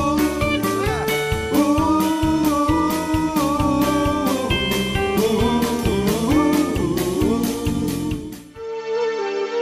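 Background music with a steady beat and pitched melody lines; about a second before the end the beat stops and only held notes remain.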